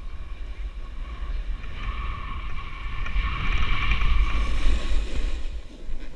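Snowboard sliding and scraping over packed snow on a downhill run, with wind buffeting the action camera's microphone as a heavy low rumble. The scraping hiss grows louder about three seconds in.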